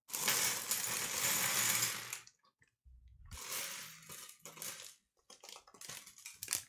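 A clear plastic parts bag rustling as small plastic LEGO Technic pins and connectors clatter out onto a wooden tabletop. Near the end come scattered sharp clicks as the pieces are spread out by hand.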